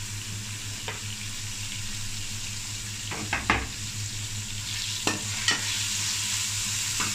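Sliced onions sizzling in hot ghee in a metal pot, with the hiss of frying and a metal spoon knocking and scraping against the pot several times as they are stirred.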